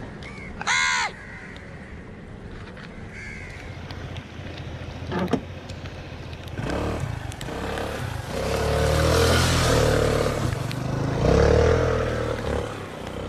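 A crow caws once, loud and short, about a second in. From about halfway, a vehicle engine comes up and runs loud until near the end.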